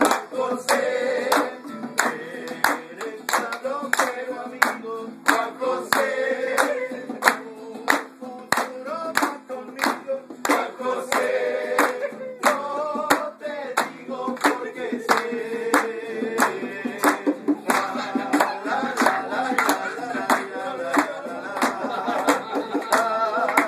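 Live acoustic guitar and bongos accompanying group singing, with hand clapping keeping a steady beat.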